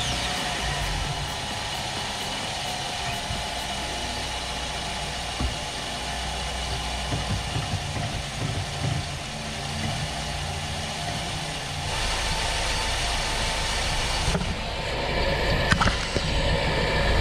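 2010 Mazda 6 engine idling steadily.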